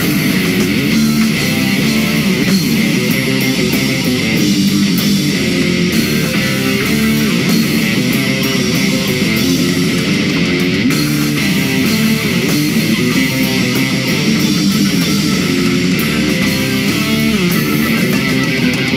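Live band playing an upbeat rock number led by electric guitar, with bass guitar and keyboard.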